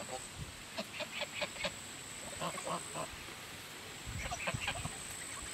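Domestic geese honking in short, quick calls, coming in three runs over a few seconds.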